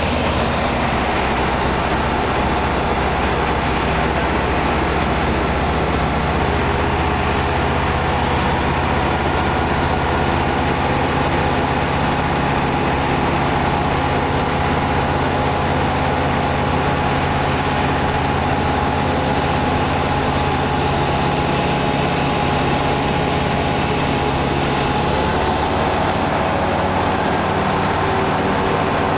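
A small ultralight aircraft's engine and propeller running steadily in flight, heard from inside the cockpit, with a steady hum of engine tones; the engine note shifts slightly near the end.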